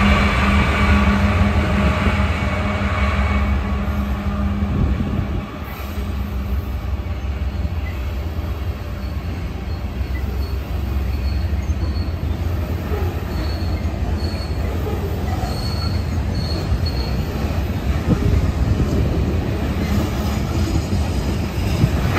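BNSF diesel freight train passing close by. The locomotives' engines drone for the first few seconds, then the covered hopper cars rumble and clatter past, with short high-pitched wheel squeals several times around the middle.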